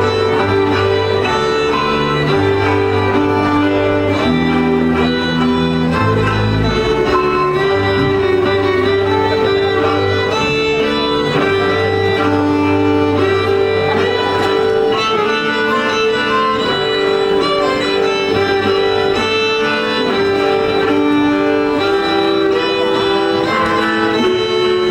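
Moravian folk string band playing a dance tune: violins over a bass line that moves between held notes.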